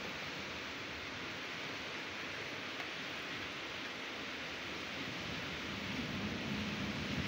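Steady hiss of rain falling during a storm, swelling a little with a low rumble near the end.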